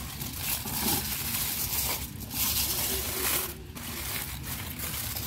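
Aluminium foil crinkling and rustling as it is peeled back off a pot, in several noisy bursts with short pauses between them.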